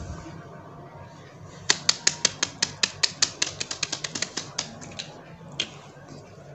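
A quick run of about twenty sharp clicks, coming faster as it goes, over about three seconds, then a few scattered single clicks.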